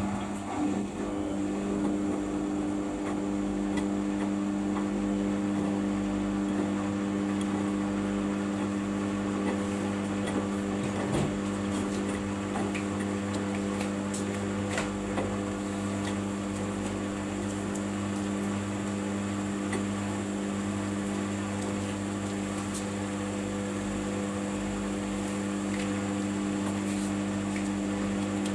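Samsung washing machine running its 15-minute quick wash cycle, giving off a steady hum of unchanging pitch.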